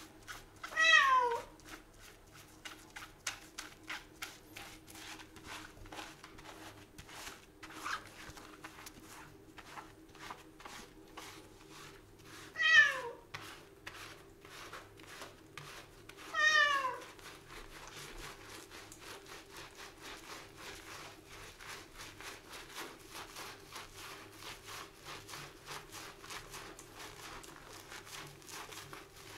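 Calico cat meowing three times while being shampooed, each meow short and falling in pitch, the first about a second in and the other two close together a little past the middle. Between the meows come soft, rapid rustling and squelching sounds of wet, soapy fur being scrubbed.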